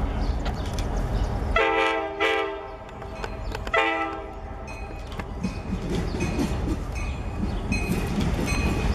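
Passenger train's multi-chime air horn sounding three blasts, then a bell dinging about twice a second over the rumble of the approaching train.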